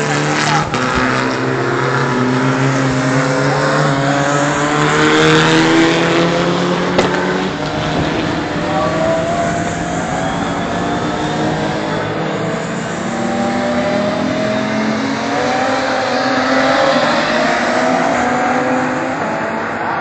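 Several racing cars' engines running at speed on the track, overlapping, their pitch climbing slowly as they accelerate, with a second wave of rising engine notes in the later half.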